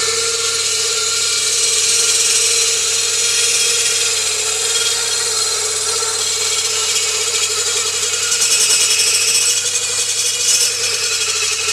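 Tractor-driven buzz saw, a large circular blade powered by a Farmall Cub, spinning with a steady whine as a log is pushed through it by hand. The cut grows harsher and brighter about two-thirds of the way through, with one short sharp crack near the end.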